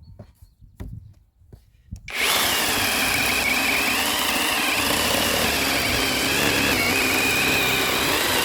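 IETO HD 215 battery-powered chainsaw switched on about two seconds in, its electric motor and chain running with a steady high whine that wavers slightly in pitch.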